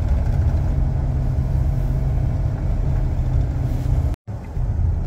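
Steady low rumble of road and engine noise inside the cab of a moving pickup truck. The sound drops out for an instant about four seconds in.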